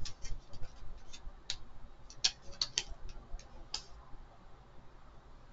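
Scattered light, sharp clicks of a tarot deck being handled, the cards' edges tapping and snapping at an uneven pace, thinning out near the end.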